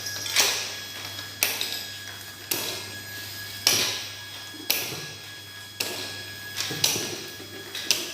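Labelling machine running through its cycle: a sharp mechanical clack about once a second at an even pace, over a steady low motor hum.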